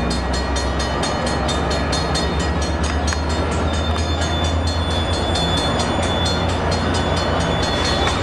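Metrolink diesel push-pull commuter train of bilevel cars rolling slowly past, with a steady low engine rumble and a fast, even ticking of about five beats a second over it.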